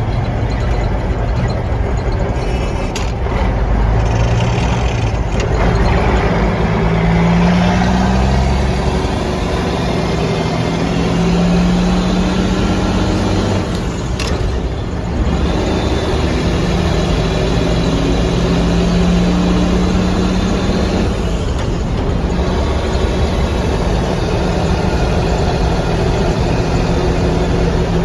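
Mack B-61 truck's diesel engine, its injection pump freshly repaired, pulling on the road with the pitch climbing through a gear. About halfway through the engine note drops off briefly between gears, then picks up and runs steadily again.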